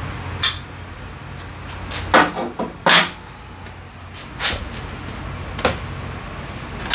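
Metal hand tools and parts clanking against a steel motorcycle lift table: several separate knocks, the loudest about three seconds in, over a low steady hum.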